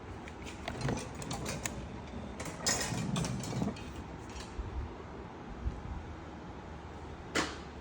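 Loaded rolling toolbox cart on heavy-duty polyurethane caster wheels, rolling over pavement with a steady rumble. Its loaded tools clatter in a few knocks, and there is one sharp click near the end.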